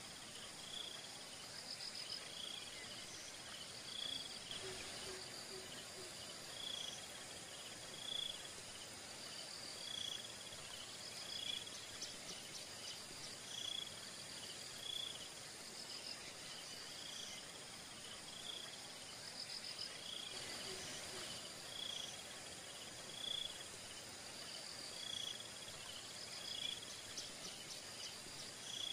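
Insects chirping: a short, high chirp repeating about every second or two over a steady, high-pitched insect drone.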